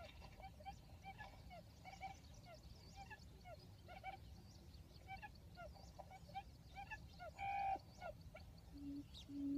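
Faint quail calls, the lure for a field-quail trap: many short falling chirps throughout, one louder call a little past seven seconds, then low, evenly spaced hooting notes starting near the end.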